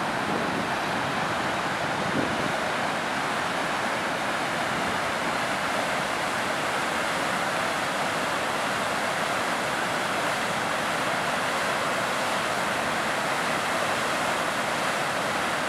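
Tahquamenon Falls pouring over its brink: a steady, even rush of falling water.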